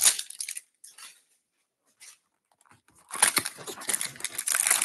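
Crinkling and rustling of the plastic wrap and cardboard of a baseball card hanger box being opened by hand: a short crinkle at the start, a pause of about two and a half seconds, then steady dense crinkling from about three seconds in.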